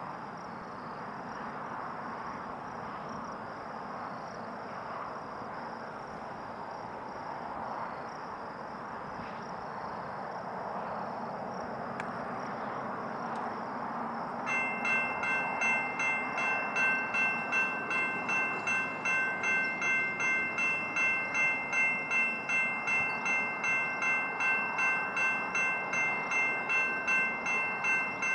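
A railroad grade-crossing warning bell starts ringing about halfway through, at about two strikes a second, as a train approaches the crossing. Before that there is only a steady low outdoor rumble.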